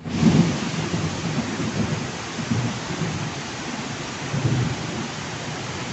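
Heavy rain falling, with rainwater cascading over a wall edge in many small streams. Under it runs a low rumble, strongest at the start and swelling twice more.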